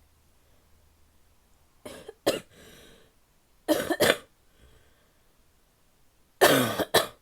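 A woman coughing in three bouts of two sharp, barky coughs each, the bouts about two seconds apart, with a breath drawn after the first pair.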